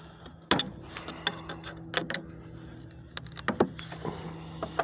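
Sharp metallic clicks and scrapes, repeated several times, as a wood chisel pries at the sealed end tank of a scrap radiator. A steady low hum runs underneath from about half a second in.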